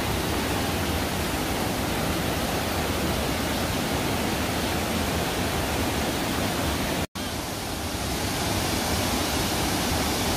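Waterfall pouring with a steady rush; the sound cuts out for an instant about seven seconds in.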